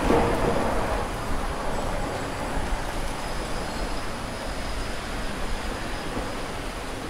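City street traffic: a vehicle passes close at the start, loudest in the first second, then a steady hum of passing traffic.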